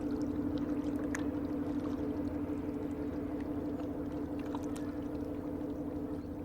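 Steady low drone of a passing cargo ship's diesel engine, a deep hum with a fine beat, slowly growing fainter.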